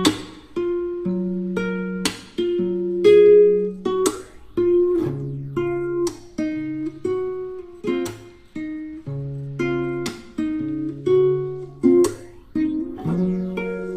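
Background music played on a strummed and plucked acoustic guitar, with chords struck about once a second.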